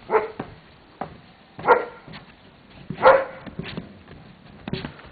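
A dog barking: three short barks about a second and a half apart, with a few faint sharp knocks between them.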